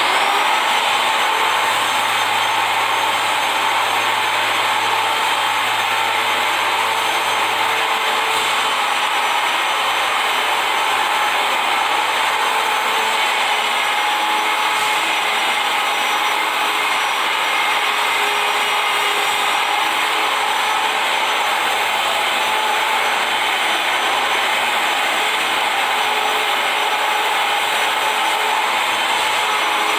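Handheld electric marble polisher running steadily with a constant whine, its polishing pad rubbing over a wet marble floor.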